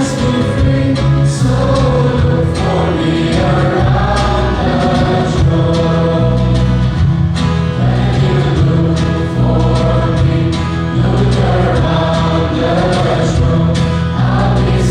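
Students singing the school anthem together as a choir, over sustained low accompaniment notes that change every second or two.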